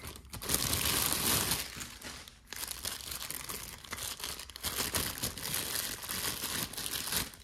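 Clear plastic wrapping crinkling as hands unwrap a small metal tea strainer, loudest in the first two seconds, then rustling on and off.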